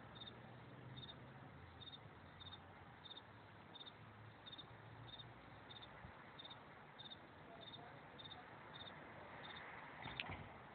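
Faint, regular chirping of a cricket, a short double pulse repeated about one and a half times a second. A couple of sharp clicks near the end.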